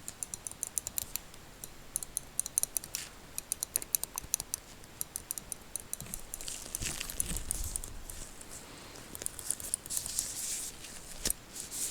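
Rapid, light, high-pitched clicks and taps close to the microphone at an uneven rate of several a second, with a soft brushing or rustling noise during the second half.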